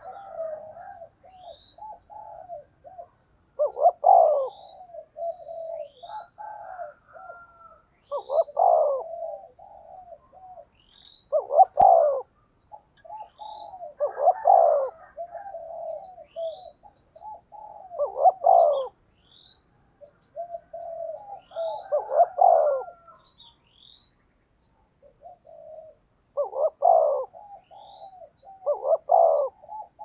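Spotted dove giving its urgent 'thúc gù' bowing coo: about eight loud coo phrases a few seconds apart, with runs of softer, quicker coos between them. This is the courtship coo that keepers use from a lure bird to draw in wild doves. Faint high chirps of another small bird sound in the background.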